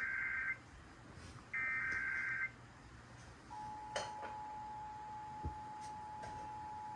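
Emergency Alert System SAME header bursts: a warbling digital data burst ends about half a second in, and a second one about a second long follows a second later. Then the EAS two-tone attention signal starts a few seconds in and holds steady. These open an EAS alert ahead of its voice message.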